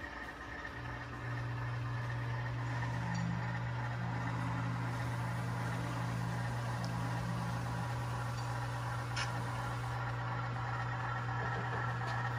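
Sound-equipped HO scale model diesel locomotive idling: a steady low engine hum that starts about a second in.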